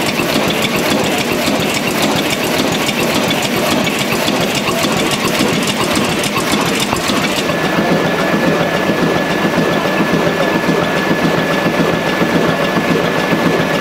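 1934 Holeby four-cylinder, 240-horsepower stationary diesel engine running steadily at idle, its exposed rocker-arm valve gear clattering with a fast, even ticking.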